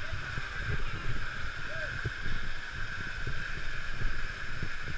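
Rushing water of a waterfall, a steady hiss, with irregular low buffeting on the microphone.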